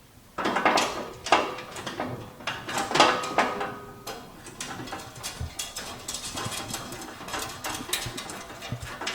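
Clicking and scraping of small metal hardware as button-head bolts are started in a Jeep's plastic inner fender, with sharper knocks in the first few seconds and lighter, quicker ticking after.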